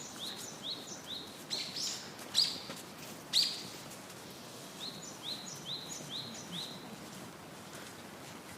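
Budgerigars chirping: runs of short, rising chirps, two to three a second, broken by two louder calls about two and a half and three and a half seconds in.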